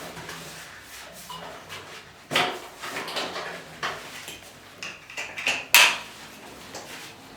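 Straps being fastened around a patient's legs on a chiropractic traction table: rustling and clattering with several short, sharp rasps, the loudest near the end.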